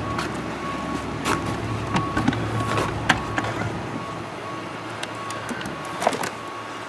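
A wooden rifle crate being unlatched and its lid lifted open, with several knocks and clatters of wood and metal. Behind it runs a steady low warehouse hum with a faint repeating high beep.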